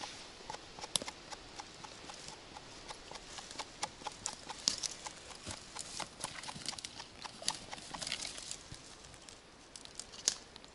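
Footsteps walking over dry pine forest floor, needles and twigs crackling and snapping underfoot in an irregular run of sharp clicks, with a louder snap near the end.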